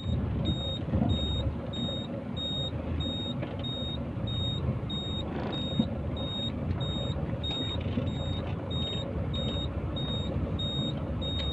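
Dump truck's reversing alarm beeping in short high pips about twice a second, over the steady rumble of the truck's engine.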